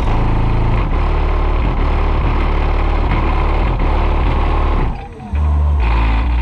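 Nine Sundown Audio X8 8-inch subwoofers playing loud bass-heavy music, heard from inside the vehicle among the speakers. Deep held bass notes step from pitch to pitch and drop out briefly about five seconds in.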